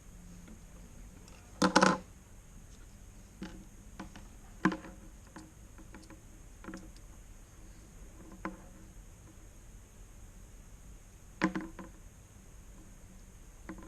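Hand tools and Cat5 cable being handled: scattered short clicks and knocks, with a loud clatter about two seconds in and another near the end.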